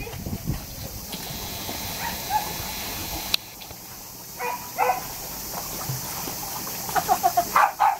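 Border collies in a pool: water sloshing at first over a steady hiss, then short high dog whines, a couple about halfway through and a quick run of them near the end.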